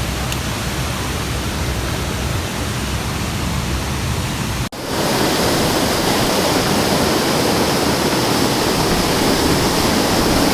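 Waterfall rushing steadily, a dense, even roar of falling water. It cuts out for an instant a little before halfway, then comes back louder and hissier.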